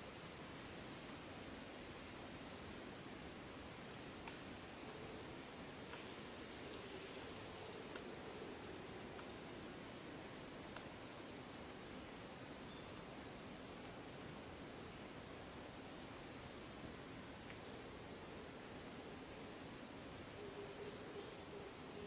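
A steady insect chorus: an unbroken high-pitched drone on two even tones.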